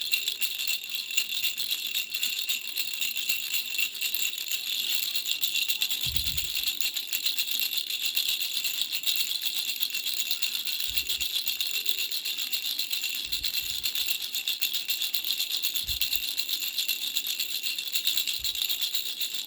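Baby rattle shaken fast and without pause, a steady bright rattling, with a few faint low bumps now and then.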